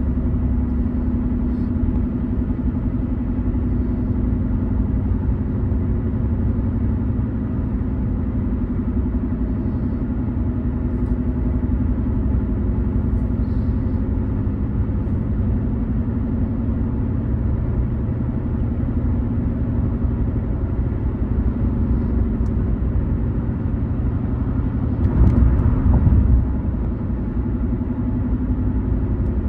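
Car driving at road speed: a steady low rumble of tyres and engine. About 25 seconds in, a louder rush lasts for a second or two.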